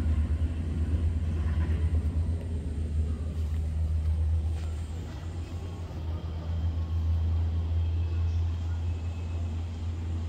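Steady low rumble of a Changi Airport Skytrain people-mover car running along its guideway, heard from inside the car.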